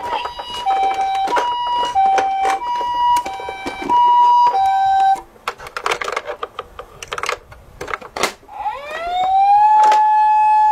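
Toy ambulance's electronic siren sounding a two-tone hi-lo pattern, then stopping for a few seconds of plastic clicks and knocks as the toy is handled. Near the end the siren starts again as a tone rising in a wail and holding steady.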